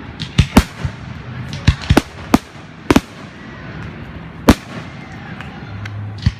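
Fireworks exploding: about a dozen sharp bangs at irregular intervals, some in quick pairs, the loudest about four and a half seconds in.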